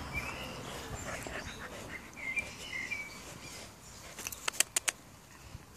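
Six-week-old Newfoundland puppies moving close to the microphone, with a few faint, short high squeaks in the first three seconds. A quick run of about half a dozen sharp clicks comes a little after four seconds in.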